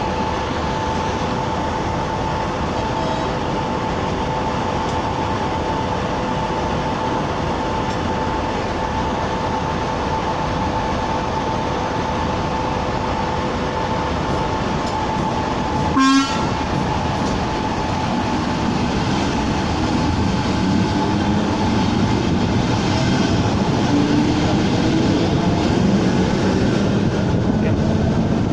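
ČD class 460 electric multiple unit running, a steady rumble with a constant whine, sounding a short horn blast about halfway through; in the second half fainter rising tones come in as the unit picks up speed.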